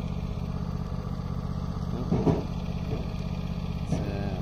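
Steady low hum of an idling engine. About two seconds in there is a short plastic clatter as a black plastic roof-rail clip is pressed and bent onto its rail piece.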